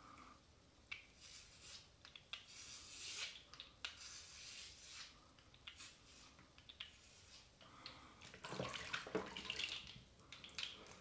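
Faint scratchy strokes of a HeadBlade S4 Moto razor scraping shaving cream and short stubble off the scalp. The strokes come in runs, louder about a quarter of the way in and again near the end.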